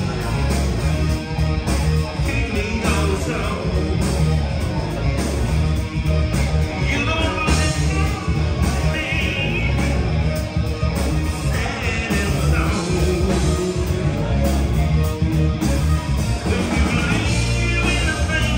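Live rock band playing loud, with electric guitars, bass and drums.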